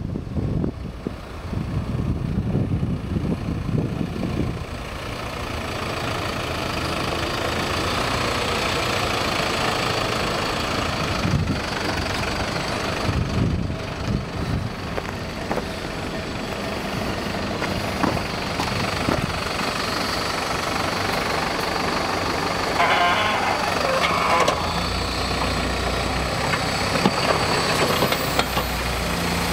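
Mercedes-Benz Unimog's diesel engine running steadily while its front plow blade pushes snow. Wind buffets the microphone during the first few seconds.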